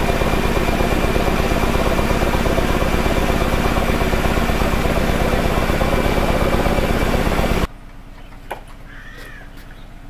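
Belliss & Morcom high-speed steam engine and DC generator running smoothly, a loud, fast, even beat. It cuts off abruptly about three-quarters of the way through, giving way to a much quieter steady background with a few light clicks and one short call.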